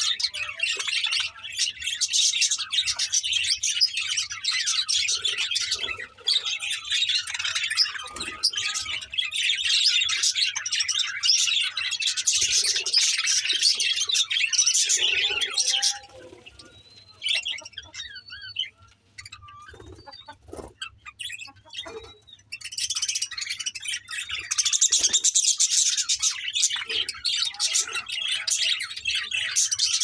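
A flock of budgerigars chattering and chirping, a dense mass of high twittering calls. About halfway through it thins to a few scattered calls for several seconds, then the full chatter resumes.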